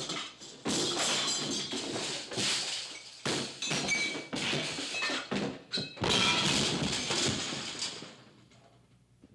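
Animated action-scene sound effects: a run of crashes and thuds with loud rushing noise as a vehicle tumbles with its occupants thrown about, dying away about eight seconds in.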